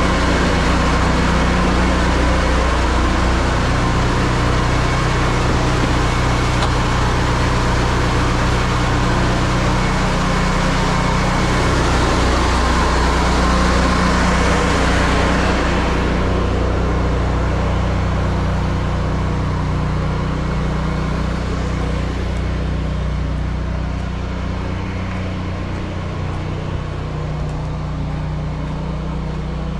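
Engine-driven pressure washer running steadily with the hiss of its high-pressure water spray. The spray hiss drops away about sixteen seconds in while the engine keeps running.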